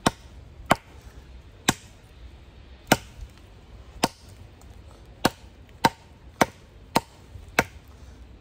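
Nedfoss Big Dog fixed-blade camp knife chopping into dead wood with about eleven sharp strikes. The blows come roughly once a second at first and quicken to about two a second after the middle.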